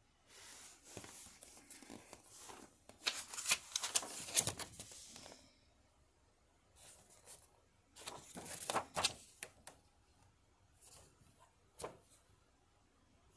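Handling of a plastic DVD keep case and its paper insert: bursts of paper and plastic rustling and scraping as the chapter-list insert is moved and turned, with a couple of sharp clicks near the end.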